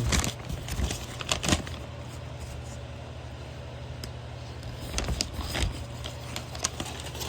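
Scattered light clicks and rustles as an unboxed toy and its packaging are handled, over a steady low hum.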